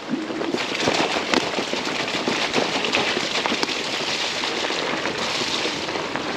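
Fat-tire e-bike tyres rolling over a wet gravel and mud trail: a steady rush of tyre noise and water spray, with many small crackling clicks from grit and twigs under the tread.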